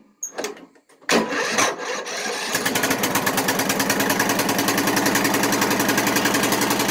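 Old Craftsman riding lawn mower engine, choke on, cranked by its electric starter after a few faint clicks, catching about two and a half seconds in and then running steadily with an even, rapid beat. It is the engine's first start in more than a year.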